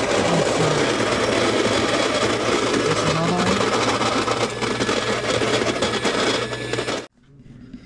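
Baratza Encore conical burr coffee grinder running steadily as it grinds whole coffee beans, then cutting off suddenly near the end.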